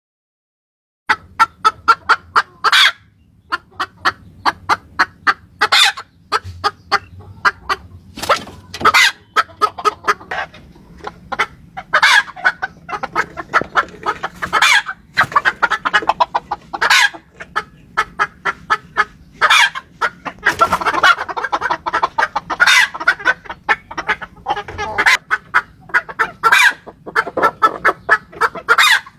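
Red jungle fowl clucking and calling. After about a second of silence come many short, sharp clucks, some of them loud.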